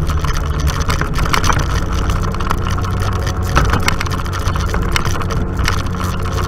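Off-road vehicle engine running at a steady, even speed on a dirt trail, with scattered short knocks and rattles from the rough ride.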